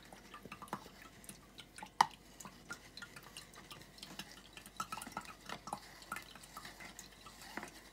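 A spoon stirring oat milk in a plastic fine strainer: small ticks and scrapes of the spoon against the strainer as the liquid is pushed through, with one sharper knock about two seconds in.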